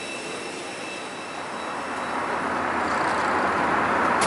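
Steady rushing noise of an airliner's jet engines and air, heard inside the cabin, growing louder about two seconds in.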